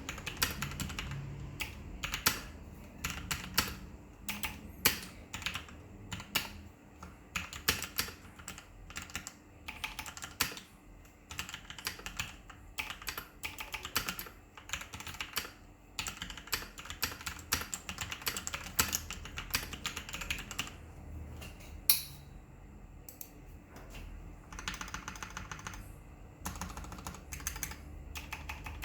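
Fast, heavy-handed typing on a Rakk Lam-Ang Lite mechanical keyboard with Outemu red linear switches lubed with Krytox 206g2 and PBT double-shot keycaps, a steady stream of irregular keystroke clacks. One hard keystroke stands out about two thirds of the way through.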